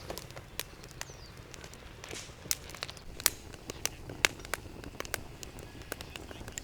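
Wood fire crackling, with irregular sharp pops and snaps, a few of them louder, over a low steady background rumble.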